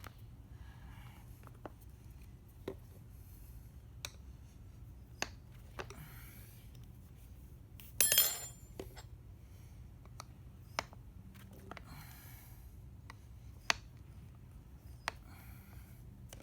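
A tyre lever working the rubber bead of a motorcycle rear tyre around the steel rim: short scraping rubs and scattered sharp metal clicks, with one loud metallic clatter about eight seconds in. The bead is stuck and is not breaking loose by hand.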